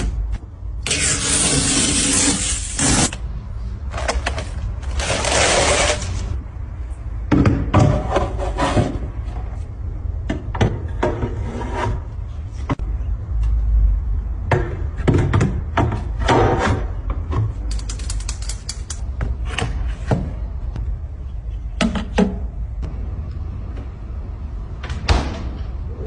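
Handling noises: repeated clicks, knocks and rubbing, some as longer hissy bursts, over a steady low hum.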